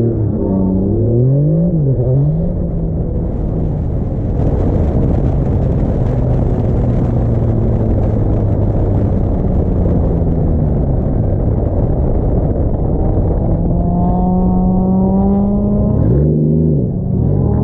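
Single-turbo Toyota 2JZ inline-six in a Nissan 240SX S14 drift car, run hard on track: the revs swing up and down, then a loud rushing noise covers the engine for several seconds, and near the end the revs climb steadily, drop briefly and climb again.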